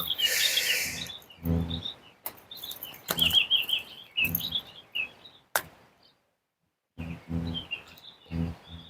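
Small birds chirping in quick repeated twittering runs, with a brief hiss at the start and a few short low bursts between. The sound drops out completely for about a second past the middle.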